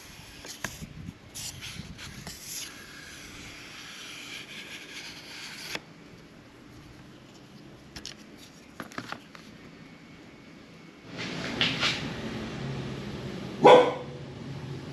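A dog barking: one loud bark near the end, with fainter barks a couple of seconds before it. Scattered clicks and knocks in the first half.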